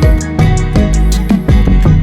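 Background music: soft instrumental music with plucked notes over sustained tones.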